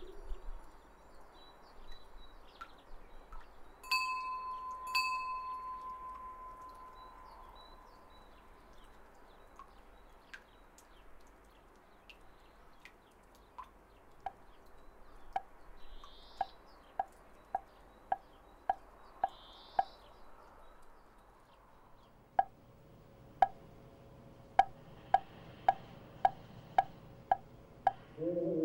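A Korean temple eave wind bell rings with two sharp metallic strikes about four and five seconds in, its tone lingering for a few seconds. Later, a series of hollow knocks comes at about two a second, breaks off briefly and starts again.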